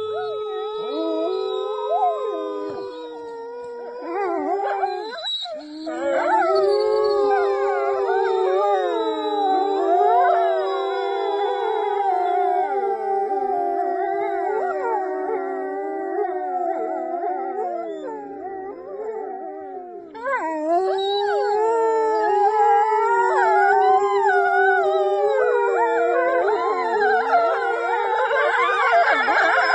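A pack of grey wolves howling in chorus, joined by a person howling through cupped hands. It opens with one steady held howl; from about four seconds in, several long overlapping howls slide up and down in pitch. The chorus thins briefly twice and is fullest near the end.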